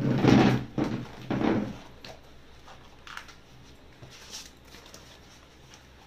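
Plastic sheet rustling and flapping as it is folded and pressed flat on a tiled counter, three loud bursts in the first second and a half, then a few faint rustles and ticks.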